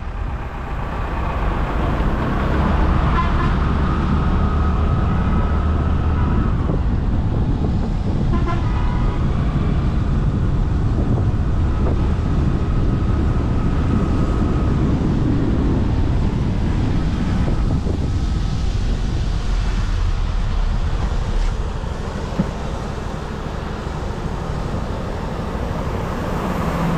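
Heavy road traffic heard from a moving vehicle: a steady low rumble of wind and road noise, with vehicle horns honking several times, longest near the start and again around the middle.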